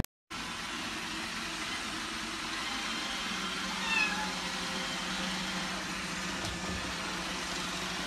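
A robot vacuum cleaner running with a steady whir and hiss, and a kitten giving one short meow about four seconds in.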